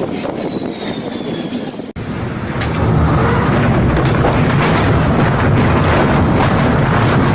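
Loud rushing noise of storm wind and sea. It drops out for an instant about two seconds in, then comes back louder and rougher.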